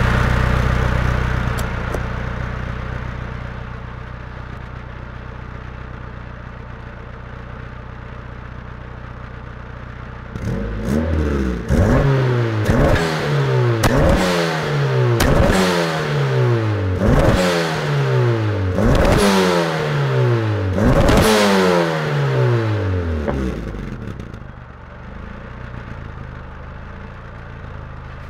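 Exhaust of a turbocharged Honda Civic with a full 3-inch system and a Dynomax VT valved muffler. It idles, then from about ten seconds in gets a string of about eight sharp revs, each rising fast and falling away, then settles back to idle near the end. The revving builds 4–5 psi of boost so the muffler's spring-loaded flapper valve opens.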